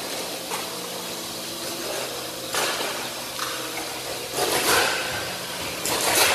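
Hydraulic scrap-car press running with a steady hum. Three bursts of hissing, rushing noise come over it, the loudest near the end.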